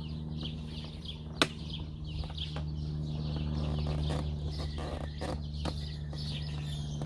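Scattered short bird calls over a steady low hum, with one sharp click about a second and a half in.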